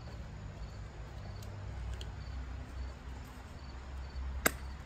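Outdoor ambience: faint insect chirps repeating in a regular rhythm over a low, steady rumble, with a single sharp click near the end.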